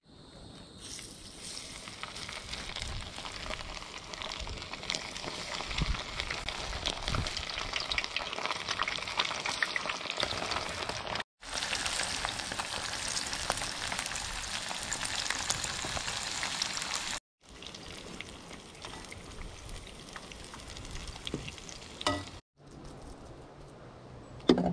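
Whole breaded bluegill frying in hot oil in a skillet: a steady crackling sizzle. The sound breaks off abruptly a few times and comes back, quieter near the end.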